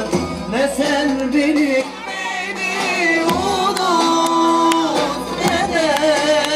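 A song: a sung melody with wavering ornaments over percussion, with one long held note about four seconds in.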